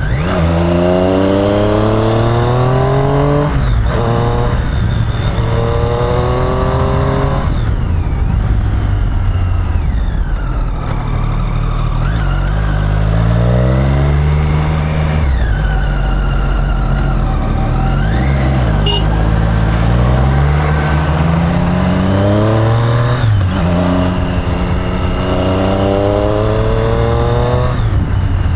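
Triumph Street Triple's inline three-cylinder engine and exhaust revving up hard under acceleration. The pitch climbs steadily and then drops sharply at each upshift, about twice in the first eight seconds and again several times near the end. In the middle stretch the revs run lower and rise and fall as the rider backs off and picks up again through the bends.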